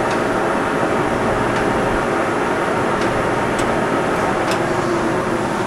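Blanchard 18-36 vertical spindle rotary surface grinder running, its 36-inch magnetic chuck turning at the slowest chuck speed of 6 RPM while the 18-inch segmented grinding wheel keeps spinning. It makes a steady mechanical hum with a few faint, irregular ticks.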